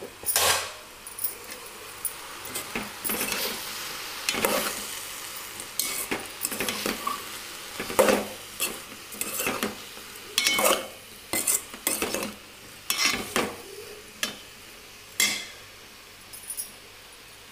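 Steel spoon stirring chopped vegetables and spices in an aluminium pot, with irregular scrapes and clinks of metal on metal that stop near the end.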